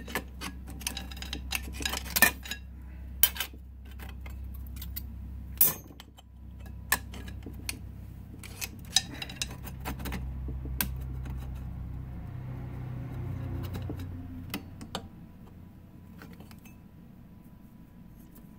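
Steel clutch discs of a Ford Model T transmission clinking and scraping as they are pried loose with a small pick, with sharp metallic clinks scattered throughout. Under them a low steady hum fades out about two-thirds of the way through.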